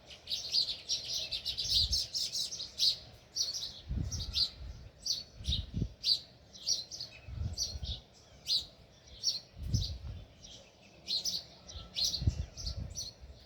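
House sparrows chirping in a steady stream of short, quick notes. Several low, muffled rumbles come in among the chirps, about every two seconds.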